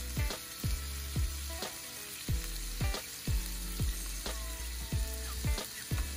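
Beef fillet steaks sizzling on a hot ridged grill pan, with a few sharp clicks as tongs turn them. Background music with a steady thumping beat plays over the sizzle.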